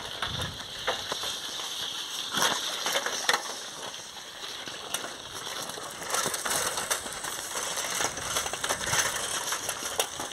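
Bicycle rolling over a dry dirt track: the tyres crunch on grit and loose earth, with scattered clicks and rattles from the bike.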